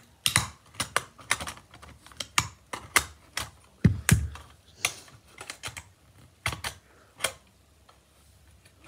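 Irregular sharp metallic clicks and taps of tools knocking and prying at a small tin toy car, with two heavier knocks about four seconds in.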